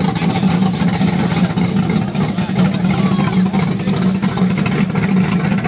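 Drag-race car engine running steadily with a deep, unchanging drone.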